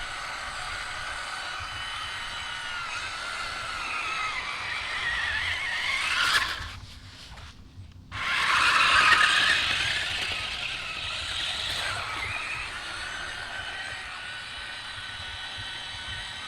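DEERC 1:16 amphibious RC monster truck's electric drive motors whining, the pitch rising and falling with the throttle. The sound drops away about six and a half seconds in and comes back suddenly and loudest about a second and a half later.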